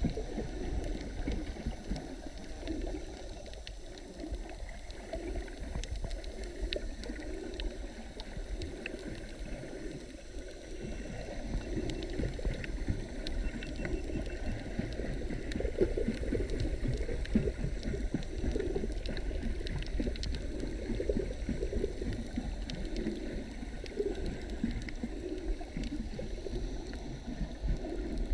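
Water noise picked up by a camera held underwater: a muffled, churning rumble that swells unevenly about once a second, with scattered faint clicks over it. It grows somewhat louder from about twelve seconds in.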